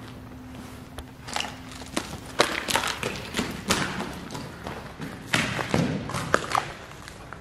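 Footsteps running across a concrete floor strewn with rubble and broken glass: irregular thuds and crunches, with a few louder knocks.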